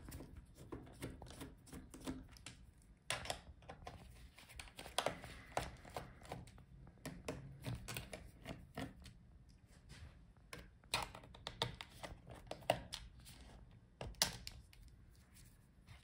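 Faint, irregular clicks and taps of a precision screwdriver working the bottom-case screws out of an MSI Modern 14 laptop, with fingers and screws knocking on the case.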